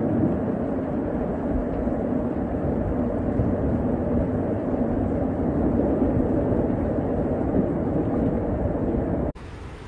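Steady roar of heavy rain and rushing floodwater pouring down a flooded street. It cuts off abruptly near the end and gives way to a quieter rushing noise.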